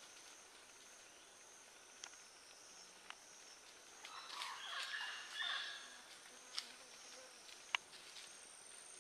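Faint rainforest ambience: a steady high insect drone, with a brief flurry of chirping calls about four to six seconds in and a few sharp clicks, the loudest near the end.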